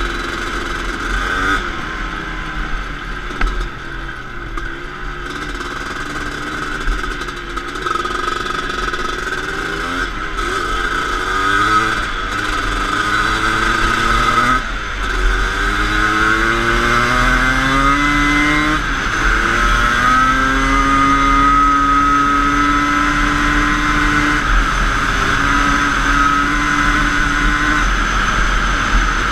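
Suzuki LT250R quad racer's 250 cc two-stroke single engine under way at speed, revving up through the gears: its pitch climbs, drops back at each shift and climbs again, then holds steady at a high pitch in the second half.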